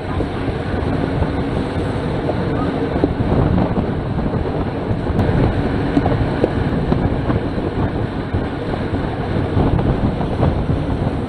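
Wind buffeting the microphone of a camera on a racing bicycle at about 28 mph, mixed with the hum of road-bike tyres on tarmac.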